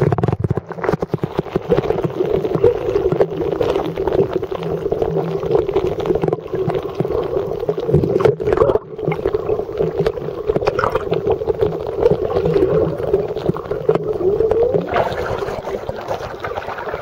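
Muffled, wavering water sound picked up by a camera microphone held under the water of a fish pond, with a low rumble beneath. About fifteen seconds in, the camera comes up out of the water and the sound turns brighter.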